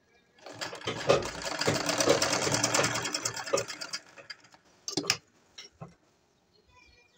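Sewing machine stitching a seam in a fast, even run of stitches that stops about four seconds in. Two short clicks follow about a second later.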